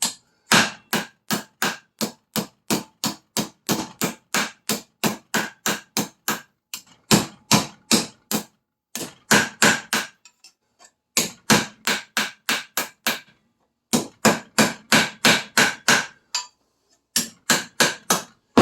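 Hammer beating a heated section of copper pipe flat on a vise: sharp metal-on-metal blows at about four a second, in several runs with short pauses, each blow with a slight ring.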